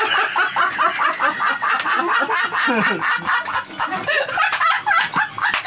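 Several men laughing hard together in rapid, overlapping bursts of laughter.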